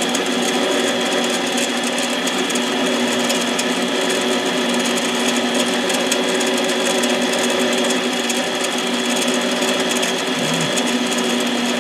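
Harbor Freight 7x10 mini lathe running at a steady speed with an even whine from its motor and drive, while the tool takes a light cut off the top of a Husqvarna 272 piston.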